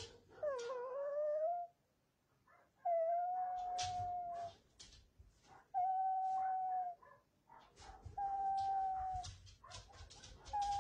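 Gravely ill puppy crying in distress: four long, whining cries of steady pitch, one every two to three seconds. Soft rustling of a fleece blanket between the cries.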